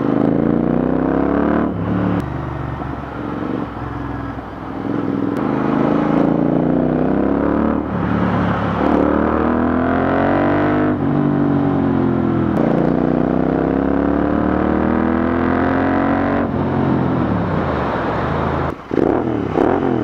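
Royal Enfield Interceptor 650's 648 cc parallel-twin engine running through an aftermarket Red Rooster slip-on exhaust while riding. The revs rise again and again through a series of gear changes, then fall off under deceleration, with a few pops and crackles near the end.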